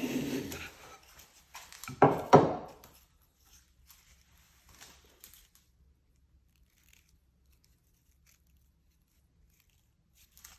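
The tail of a stroke of an edge tool shaving a curl off wood, then two sharp knocks about two seconds in, followed by a few faint rustles and ticks.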